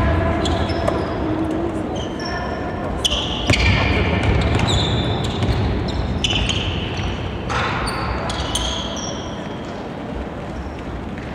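Basketball game on a hardwood court: the ball bouncing as it is dribbled, with sneakers squeaking in short high-pitched bursts as players cut and stop, and players' voices.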